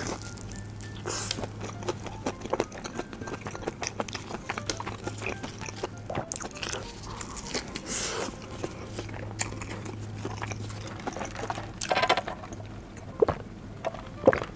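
Biting and chewing fried chicken close to the microphone, with many short crackly crunches from the fried coating.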